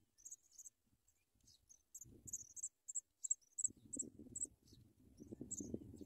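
Nestling songbirds begging with thin, very high-pitched peeps, about three a second. A low rumbling noise comes in briefly about two seconds in and again from about three and a half seconds.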